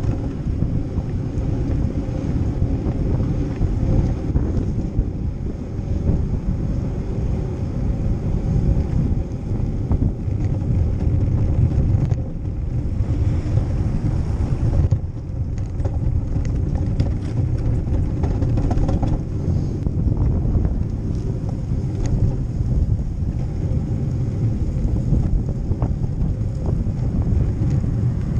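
Wind buffeting the microphone of a bike-mounted GoPro Hero 4 Session while cycling, a steady low rumble mixed with tyre noise on the road and occasional small rattles.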